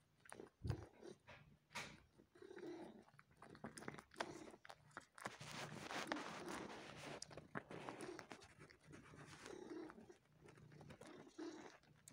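Domestic cat suckling on a person's skin: soft wet sucking clicks and smacks over a low purr that pulses about once a second with its breathing, the sucking getting louder for a few seconds in the middle. This is adult comfort-suckling, nursing-like behaviour done while kneading.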